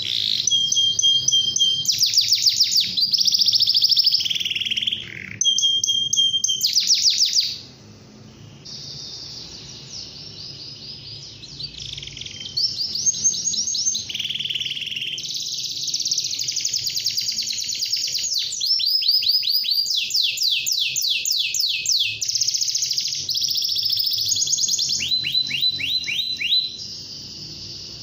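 Domestic canary in full song: long runs of rapid, high-pitched trills and rolls, one phrase after another, with a brief lull about eight seconds in before the song builds back up.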